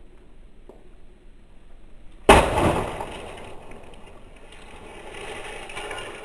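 A sudden loud crash with a breaking-glass quality about two seconds in, fading out over the next couple of seconds.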